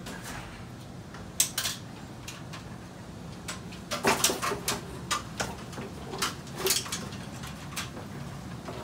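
Hands and a small tool working Cat6 cables at a network rack's patch panels: scattered sharp clicks and snaps in small clusters, about a second and a half in, around four seconds and again near six and a half seconds, over a steady low hum.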